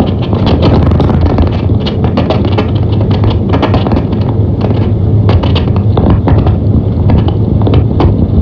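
Vehicle driving on a rough unpaved road, heard from inside the cab: a steady low rumble of engine and tyres with frequent irregular knocks and rattles from the bumpy surface.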